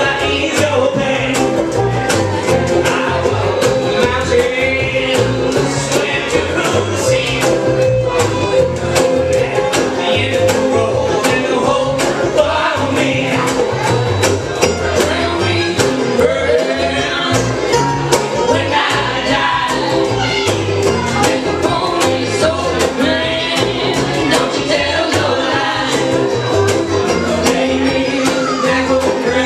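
Live acoustic folk band playing: strummed acoustic guitar, mandolin and fiddle over a guitarrón bass line, with a steady beat.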